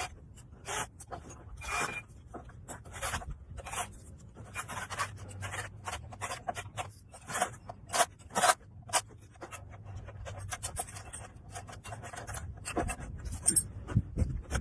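Scraping on wood in short, irregular strokes, as a hand tool or abrasive works a workpiece, over a faint low hum.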